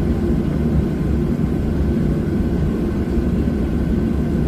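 Jet engines of a Boeing 737 airliner heard from inside the passenger cabin: a steady, even rumble with a faint high whine held on one note.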